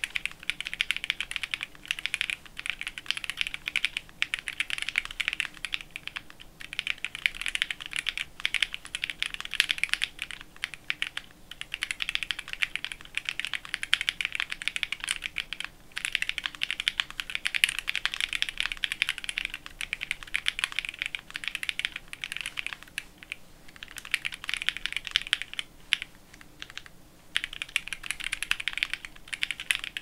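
Fast, continuous typing on a gasket-mounted Ginkgo65 mechanical keyboard with stock, broken-in Novelkey Cream linear switches, a polycarbonate plate, plate and case foam, and GMK ABS keycaps: a dense stream of keystrokes broken by a few brief pauses.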